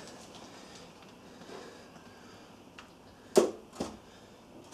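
Two short knocks about half a second apart, near the end, as an aluminium Honda B18 cylinder head is set down onto the engine block's dowels over the head gasket. Before them there is only quiet room tone.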